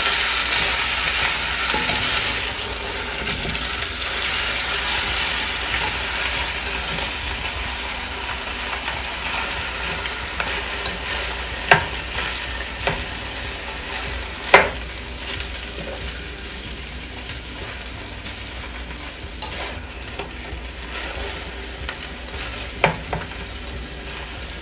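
Skinless chicken drumsticks frying in vegetable oil, a steady sizzle as they brown, slowly dying down. A few sharp knocks come through around the middle and near the end.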